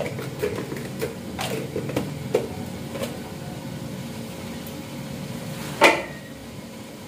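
Kitchen handling noises: a few light clicks and knocks of utensils and containers over the first three seconds, then one sharp, louder clatter about six seconds in, over a steady low hum.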